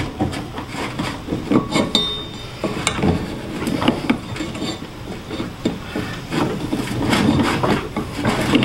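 Hands fitting the deck belt onto the pulleys of a Cub Cadet Ultima ZT2 zero-turn mower deck while pulling the idler pulley against its spring: scattered knocks and clinks of metal parts and the rubber belt rubbing over the pulleys. There is a brief high ring about two seconds in, and denser rubbing and knocking near the end.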